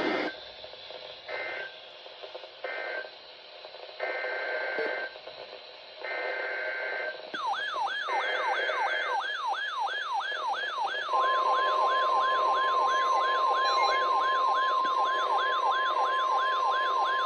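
NOAA Weather Radio alert sequence: short screeching digital data bursts of the EAS header, then a rapidly rising-and-falling siren alarm about three sweeps a second from about seven seconds in. About eleven seconds in, the steady Weather Radio warning alarm tone joins it, signalling that a new warning is about to be read.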